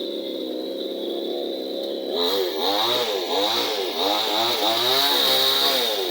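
Chainsaw engine idling, then revved in several quick blips of the throttle, its pitch rising and falling each time, before dropping back to idle near the end.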